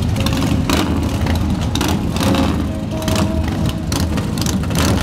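Several cruiser motorcycles, Harley-Davidson V-twins among them, running together at idle in a steady low rumble.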